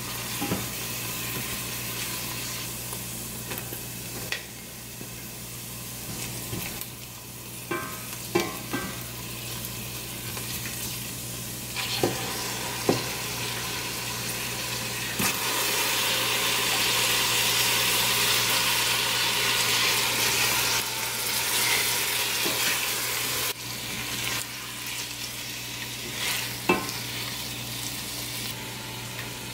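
Garlic, onion and ginger sizzling in oil in a stainless steel stockpot, with a silicone spatula stirring and now and then clicking against the pot. About halfway through, raw chicken drumsticks go in and the sizzle grows louder for several seconds before easing. A steady low hum runs underneath.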